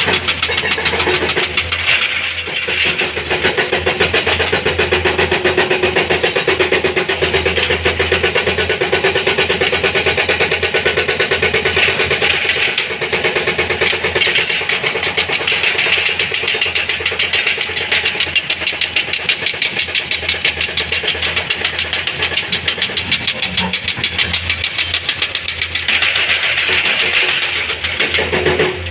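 Diesel engine of a Komatsu PC210 hydraulic excavator running under load as it digs and swings, a steady fast pulsing engine drone.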